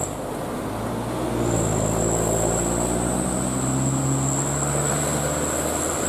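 Coach bus diesel engine pulling away up a bend, its pitch rising for about three seconds from a second and a half in and then holding steady.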